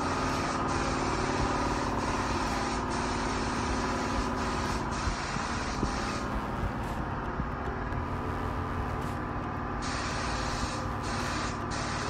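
Air spray gun hissing as two-pack epoxy primer is sprayed, over a steady low hum. The spray hiss stops about halfway through and starts again near the end while the hum carries on.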